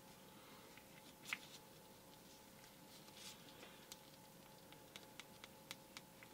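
Near silence with faint small clicks and handling noise as the metal base of a 1:64 diecast toy car is fitted back on and a tiny screw is driven in. One sharper click comes about a second in, and a few fainter ticks follow toward the end.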